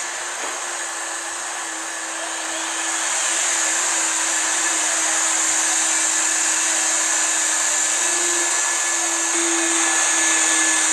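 Boston Dynamics Handle warehouse robot running as it wheels about and moves boxes: a steady machine whir and hiss with a low hum that wavers slightly in pitch, growing louder about three seconds in.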